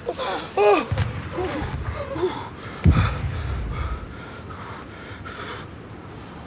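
A badly wounded man groaning and gasping in pain. A deep thump comes about three seconds in, with a low rumble fading after it.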